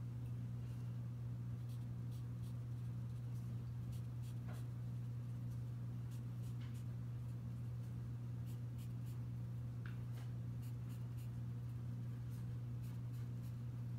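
A wooden pencil on paper making short, irregular scratches and taps as it marks small dashes and dots, over a steady low hum.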